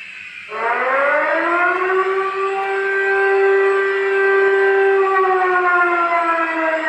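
Fire alarm siren sounding in a general alarm test, with every zone activated: one long wail that rises over about a second, holds steady, then falls away near the end.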